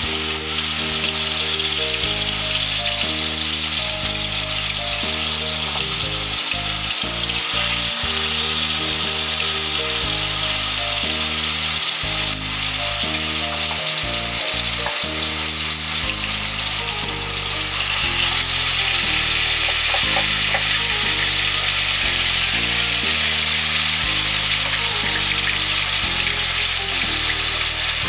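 Marinated rohu fish pieces sizzling steadily as they fry in hot oil in a kadai, with pieces laid into the oil one by one. Background music plays underneath throughout.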